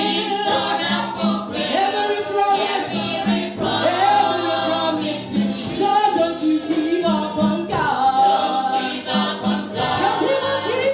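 Gospel choir singing with instrumental accompaniment, several voices moving over steady low bass notes.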